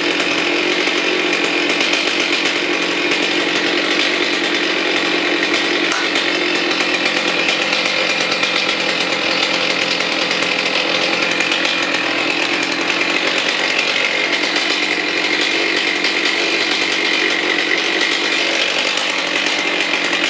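Stihl 039 chainsaw's 64cc two-stroke engine running steadily at an even speed, not cutting.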